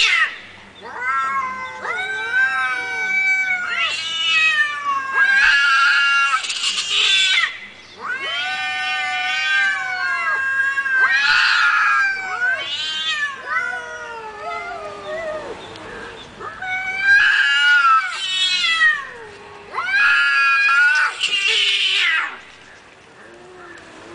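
Cats caterwauling: a string of long, drawn-out, wavering yowls, one after another, the hostile yowling of cats squaring up before a fight.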